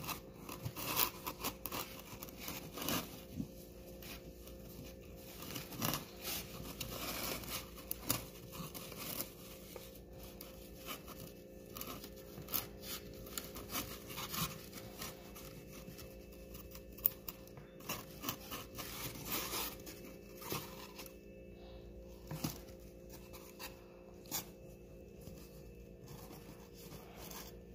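Hands working a cloth reptile shipping bag inside a styrofoam box: a rubber band worked off its twisted neck and the fabric unfolded, with irregular rustling, small scrapes and clicks.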